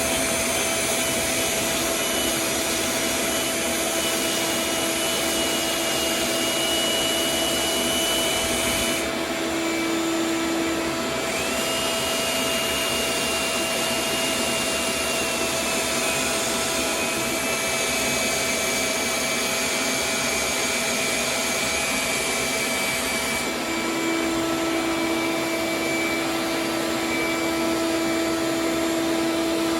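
Vacuum running steadily with a humming whine while the resin fill coat on a surfboard repair is sanded with 120-grit paper. A higher hiss cuts out twice and comes back, and the whine's pitch shifts slightly.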